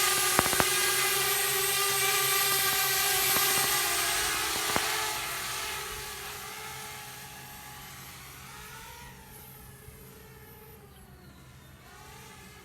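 Parrot Bebop quadcopter drone's propellers whining with a steady pitched hum that grows steadily fainter as the drone flies away. A couple of sharp clicks sound in the first second and one more about five seconds in.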